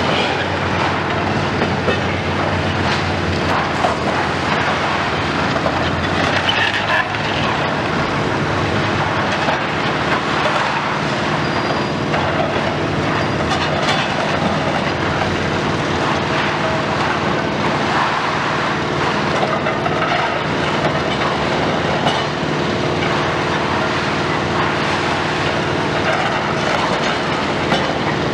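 Komatsu PC490 long-front demolition excavator running steadily while its attachment tears at the building, with constant crashing and clattering of falling masonry and rubble.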